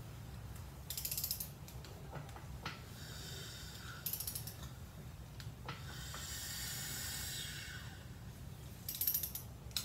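A Toyota 2ZZ engine being turned over by hand with a ratchet on the crankshaft. The ratchet clicks in three short quick runs, and between them comes a longer scraping from inside the engine: the crankshaft is catching the tabs of a newly fitted crank scraper.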